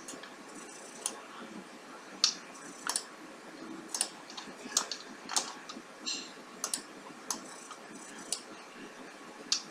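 Computer mouse buttons clicking irregularly: about a dozen sharp clicks, some in quick pairs, over a faint steady hiss.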